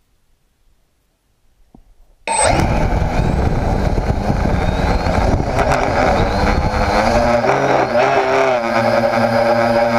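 Homemade quadcopter's electric motors and propellers spinning up suddenly about two seconds in, with rushing prop wash on the onboard GoPro's microphone. Near the end the pitch wavers and settles into a steady drone as the craft lifts off.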